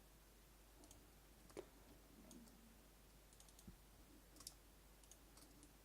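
Faint, irregular clicking from a computer mouse and keyboard in use, over quiet room tone.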